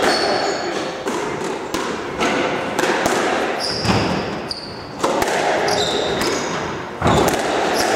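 Squash rally: the ball cracks repeatedly off the rackets and the court walls, about once every half second to a second, with court shoes squeaking briefly on the wooden floor between shots, echoing in the hall.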